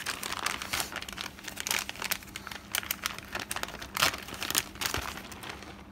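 Plastic bag of shredded mixed cheese crinkling in irregular crackles as it is shaken and squeezed to sprinkle the cheese out.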